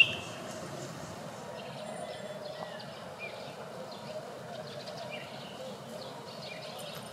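Faint outdoor village ambience with scattered short, high chirps about once a second.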